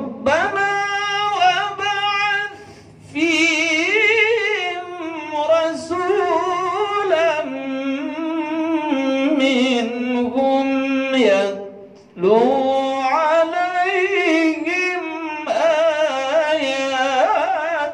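A man's voice chanting Quranic recitation in the melodic tilawah style, close into a handheld microphone: long held notes with wavering ornaments, in three long phrases broken by short breaths about three seconds in and about twelve seconds in.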